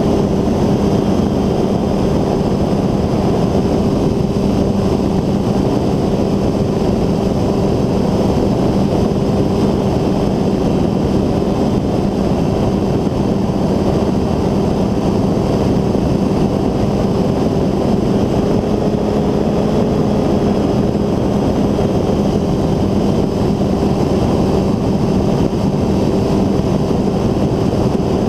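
Engine and pusher propeller of a North Wing Maverick 2 ultralight trike running at steady cruise power in flight: a constant drone that holds one pitch throughout.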